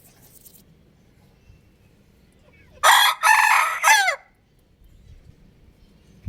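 A rooster crowing once, loudly, about three seconds in: a short first note, a long middle note and a falling last note, lasting about a second and a half.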